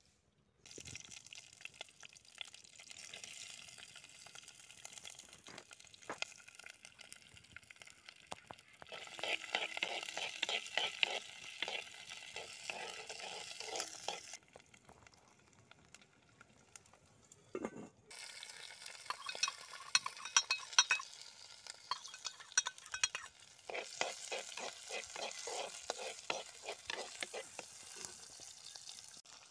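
Garlic cloves sizzling as they fry in hot oil in a clay pot, with a steel ladle scraping and stirring them against the pot in two spells of quick strokes.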